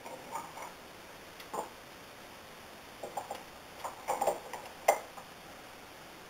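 Light, irregular taps and ticks of hand wool combs as wool is loaded onto a steel-tined comb held in a wooden clamp-on pad: wood and tines knocking together, a few at first, then a busier run with the sharpest tap near the end.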